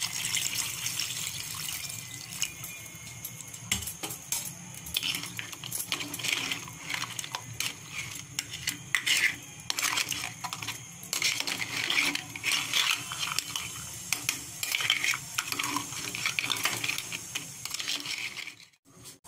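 Water pouring into a metal pot of crab curry for the first couple of seconds. Then a metal spoon stirs the curry, with many light clinks and scrapes against the pot and crab shells.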